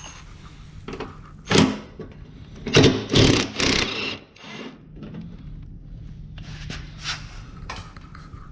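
Cordless power driver running in short bursts, backing screws out of a car's plastic wheel-well liner and front bumper. There is a brief burst about one and a half seconds in and a longer, louder one around the three-second mark, with a few light clicks of plastic and clips later on over a steady low hum.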